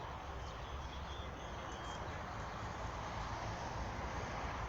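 Steady outdoor background rumble and hiss that slowly grows louder, with a few faint bird chirps about two seconds in.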